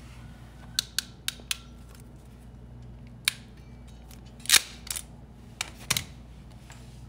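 Sharp clicks and snaps of a hand wire stripping and crimping tool working a red battery cable and crimping a yellow ring terminal onto it: a quick run of four clicks in the first second and a half, a single click about three seconds in, the loudest snap about four and a half seconds in, and two more near six seconds.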